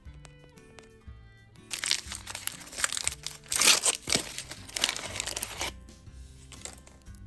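Toy packaging crinkling and tearing for about four seconds, starting a couple of seconds in, over soft background music with light bell-like notes.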